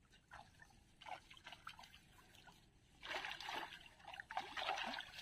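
Water trickling and splashing as a fishing net is gathered by hand in a pond, in short spells that get louder from about three seconds in.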